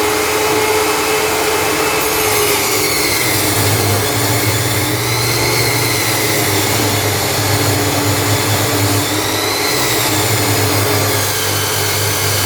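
Table saw running continuously, its motor whine sagging and recovering in pitch a few times as it cuts wood branches.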